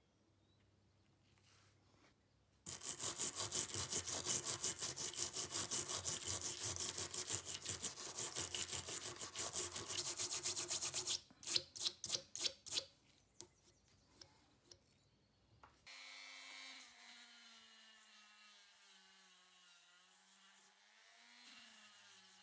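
A stiff hand brush scrubbed rapidly back and forth over a small steel part clamped in a vise, a quick rasping run of strokes for about eight seconds, then a few slower separate strokes. A much fainter steady whirr with a wavering, falling pitch follows near the end.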